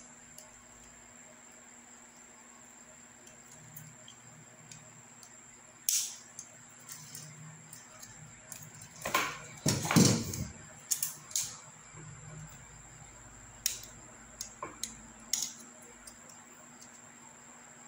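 Handling noise from a small plastic selfie-stick remote being turned over and prodded in the fingers: scattered light clicks, with a longer scraping rub about nine to ten seconds in.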